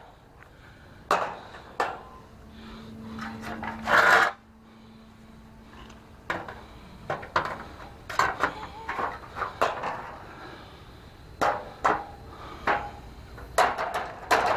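Irregular knocks and clatter from a truck trailer's side slats and stakes being fitted and tapped into their rails, with a louder scrape about four seconds in. A faint steady hum runs for a few seconds in the first half.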